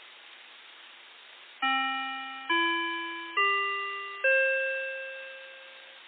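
Outdoor municipal disaster-prevention loudspeaker playing a four-note rising chime (C–E–G–C), each note struck about a second apart and left to ring out, over a steady hiss from the system. This rising chime is the usual opening signal of a broadcast on such systems.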